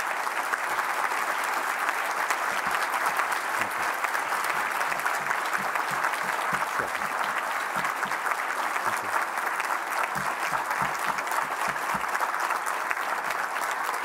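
Audience applause: a large crowd clapping at a steady level throughout.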